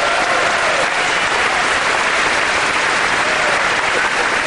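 Large audience applauding steadily, with a few faint voices calling out in the crowd.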